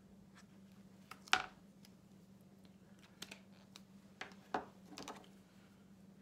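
Plastic marker caps clicking and markers tapped down on a wooden table as one marker is put away and the next picked up. There is one sharp, loud click about a second in, then a cluster of lighter clicks and taps in the second half.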